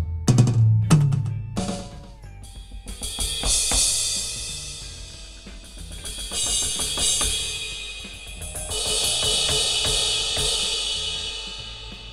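Aroma TDX-25 electronic drum kit played through its sound module: a handful of heavy low drum hits in the first two seconds, then three cymbal crashes a few seconds apart, each ringing out and fading.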